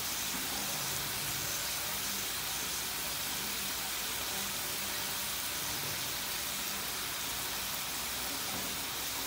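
Slices of pork belly sizzling on a ridged grill pan: a steady, even hiss.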